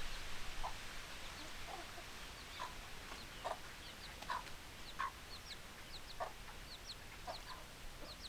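Domestic hens clucking, short separate calls every half second to a second, with many quick high-pitched cheeps mixed in.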